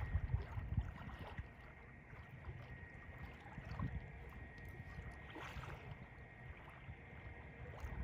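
Small river waves lapping at a sandy shore, with wind rumbling on the microphone.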